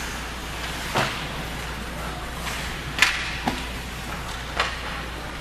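Ice hockey play near the net: four sharp cracks of sticks and puck striking, the loudest about three seconds in, over steady rink noise.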